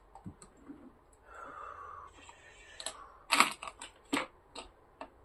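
Light clicks and knocks of small objects being handled and set down on a dresser, with a drawer pulled open. A quick run of sharper clicks comes about three seconds in.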